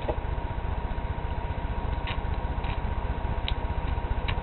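Steady low mechanical hum with a fast flutter and a thin steady tone above it, broken by a few faint clicks.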